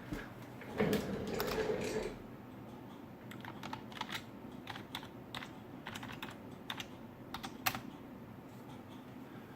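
Typing on a computer keyboard: irregular key clicks, after a louder rustling noise lasting about a second near the start.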